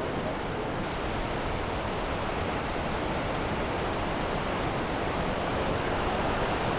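Niagara River whitewater rapids rushing steadily, an even noise with no breaks.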